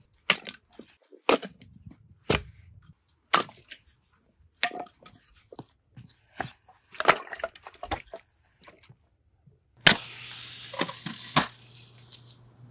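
Axe blows splitting firewood logs into kindling, sharp chops and cracks of wood about once a second. About ten seconds in, a match is struck and flares with a hiss lasting a couple of seconds.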